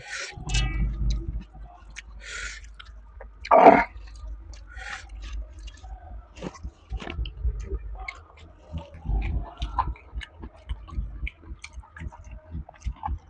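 A person eating: chewing with wet smacks and many small, irregular clicks and taps, and one louder short noisy sound about three and a half seconds in.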